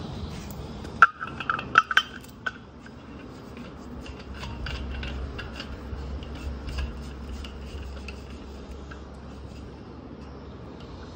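A quick series of light metallic clinks, metal tools or parts knocking together, about a second in, followed by a steady low rumble with scattered faint ticks.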